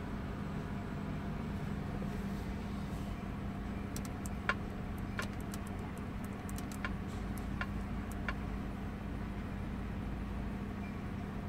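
A steady low hum of a car idling, heard inside the cabin. Over it, a run of short clicks, some with a brief beep, about four to eight seconds in, as a finger presses the touchscreen of a Kenwood DDX42BT head unit.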